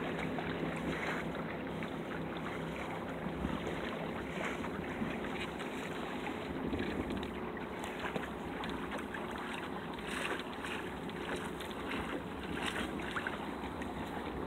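Water lapping and splashing along a small sailboat's hull under sail, with wind gusting over the microphone.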